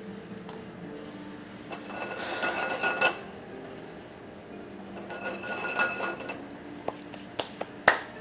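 Metal cookware being handled on a stove: two stretches of scraping and rattling with a light metallic ring, then three sharp clicks near the end.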